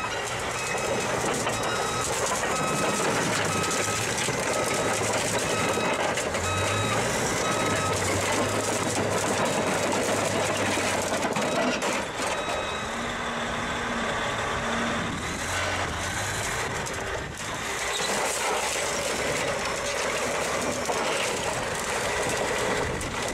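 Large Caterpillar crawler bulldozer running, with its backup alarm beeping repeatedly through the first several seconds and again briefly later. Under the beeps is the steady noise of the diesel and the steel tracks as the machine crawls back and forth over a car and flattens it.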